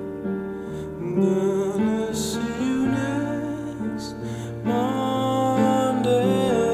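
Upright piano played with a man singing over it; his voice holds long, wavering notes about two seconds in and again from about five seconds on.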